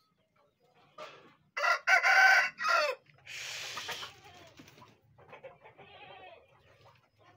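A rooster crowing once, loud, starting about a second and a half in. A brief rushing noise follows.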